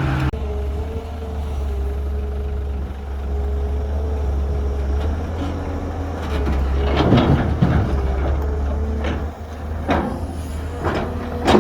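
Heavy diesel construction machinery running steadily, a low engine drone with a steady whine over it. A burst of clattering comes about seven seconds in, and single knocks come near ten seconds and again near the end.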